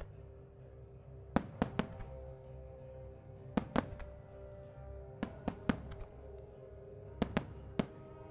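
Japanese fireworks shells going off in a music starmine, as sharp bangs in quick clusters of two or three about every two seconds. Music plays steadily underneath.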